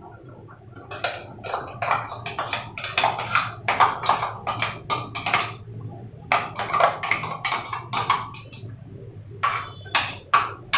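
A steel mixer-grinder jar knocking and scraping against a kadai as thick ground coconut paste is emptied into it, in three runs of quick, irregular clinks and knocks.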